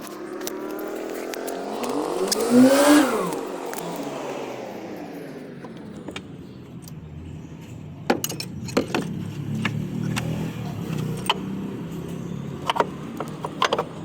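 Car engine, presumably the BMW X2 under repair, revved once about two seconds in, its pitch rising and falling back within a second or so, over a steady low engine run. Later come a series of light metallic clinks and taps.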